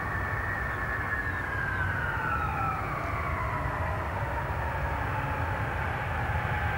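Lockheed C-5A Galaxy's four General Electric TF39 turbofans passing low overhead with the landing gear down. A steady low rumble runs under a high engine whine that falls in pitch as the aircraft goes by.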